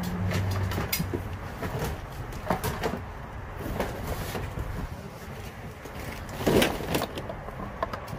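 Boxes and loose items being shifted and rummaged through: scattered knocks, thumps and rustling, with a louder clatter about six and a half seconds in. A low hum runs under the first second.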